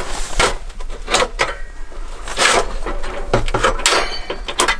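Irregular knocks and rustling from gloved hands handling gear, about half a dozen sharp knocks scattered through.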